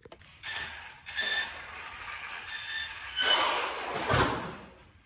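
Handling noise: the plastic body being fitted onto the RC truggy's chassis and the phone being moved, a rough rustling and clattering that ends in a low thump about four seconds in.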